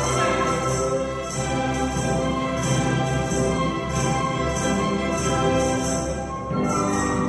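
Live orchestra with violins playing a quadrille, with a regular beat.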